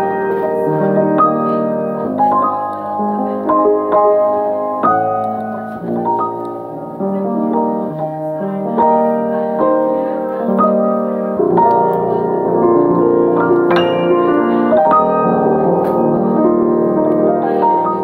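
Piano being played: chords and melody notes struck one after another, each ringing on and overlapping the next.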